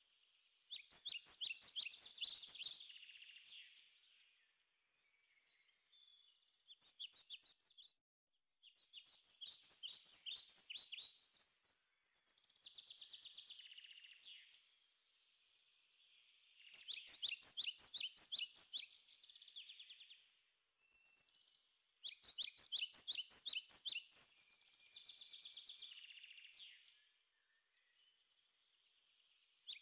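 A songbird singing quietly: bouts of rapid chirps and trills a few seconds long, repeated with short pauses between.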